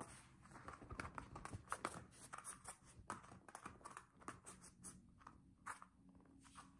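A small dog playing tug with a fabric toy: a quick, irregular run of rustles, snaps and scuffs from biting and pulling at the cloth, thinning out over the last second or so.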